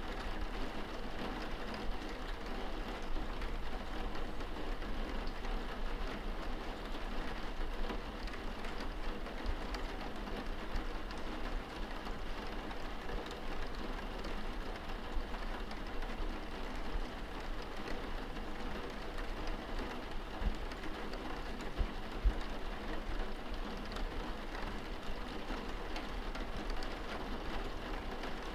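Steady rain pattering on window glass, heard from indoors, with scattered drops ticking against the pane and a low steady rumble beneath.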